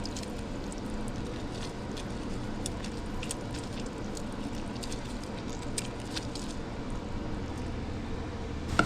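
Fresh lime being squeezed by hand over a bowl of coleslaw, with small wet squishing and faint ticks, over a steady low hum. A sharper knock sounds near the end.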